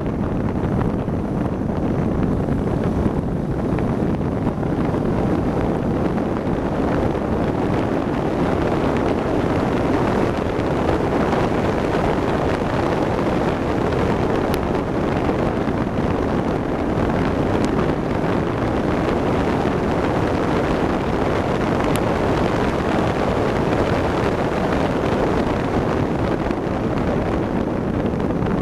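Wind rushing and buffeting the in-car microphone of an open-cockpit car at speed on a track, with the car's engine and road noise mixed in: a loud, steady rush.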